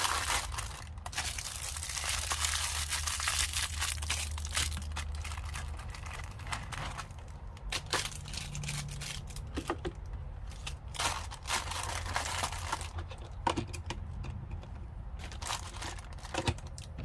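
Plastic packaging crinkling and rustling while tools are handled, with scattered small clicks and knocks.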